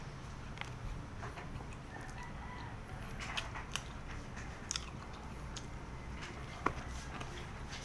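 Chewing a crispy fried banana turon, with scattered short crunches and clicks as the wrapper breaks.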